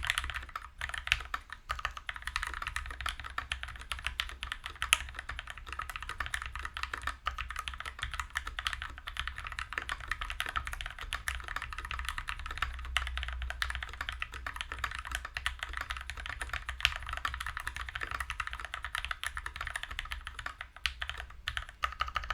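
Continuous fast typing on a KBD75v2 mechanical keyboard with a brass plate, Krytox-lubed Gateron Yellow linear switches and GMK keycaps: a dense, steady stream of keystrokes with a few louder strokes scattered through. The typing stops right at the end.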